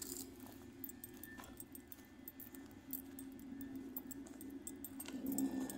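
Keys jingling in quick, irregular little clinks, over a steady low hum.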